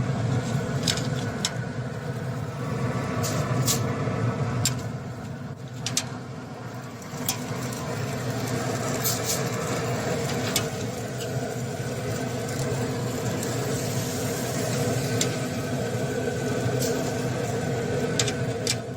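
A steady motor hum, with scattered sharp clicks and taps over it.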